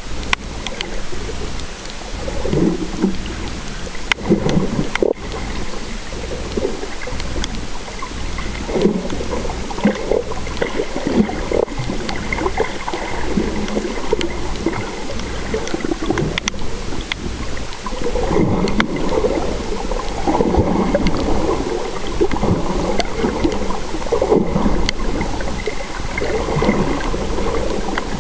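Muffled underwater water noise picked up by a submerged waterproof camera, with irregular gurgling swells coming and going every second or two.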